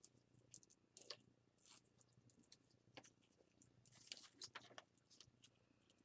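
Near silence, with faint scattered rustles and small clicks as hands work a wooden bead onto braided cord beside rattan balls.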